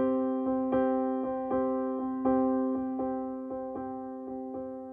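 Background music: a piano playing a steady run of repeated notes over a held chord, each note struck and fading.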